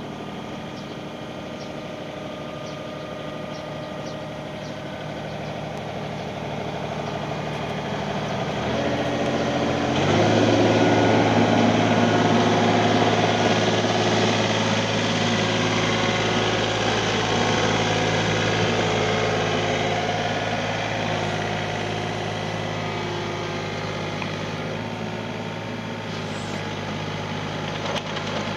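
Kobelco SK28SR-6 mini excavator's diesel engine idling, its speed stepping up twice, about nine and ten seconds in, and running louder at the higher speed before gradually easing off.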